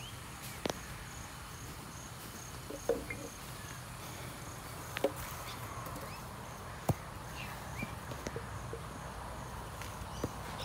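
Several sharp knocks of a cricket ball and bat a couple of seconds apart, the loudest about seven seconds in, over an insect chirping in a steady rhythm about twice a second through the first half.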